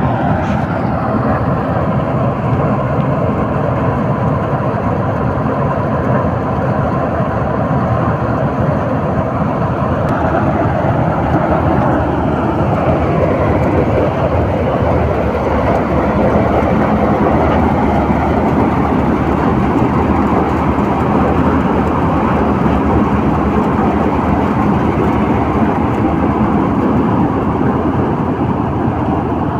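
Preet 987 combine harvester running steadily, its engine and harvesting machinery making a loud, unbroken mechanical noise.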